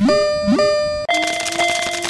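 Synthetic electronic warning tones from a cartoon railway-crossing signal: two quick upward-swooping notes about half a second apart, then a steady held tone with a brief break partway through.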